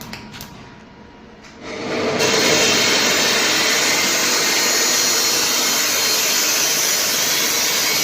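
Argon welding: after a few faint clicks, a loud steady hiss builds up about a second and a half in and holds evenly.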